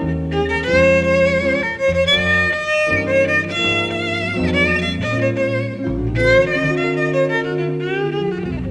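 Jazz violin playing a melody of sustained notes with a wide vibrato over a walking double bass accompaniment, in a live concert recording.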